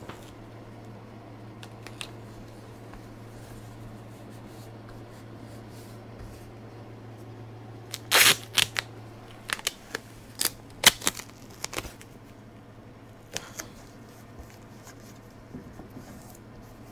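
Adhesive tape being handled: pulled off the roll with a short ripping burst about eight seconds in, then a run of sharp crinkles and crackles as tape and its backing are torn and pressed on, with a few more later. A steady low hum underlies it.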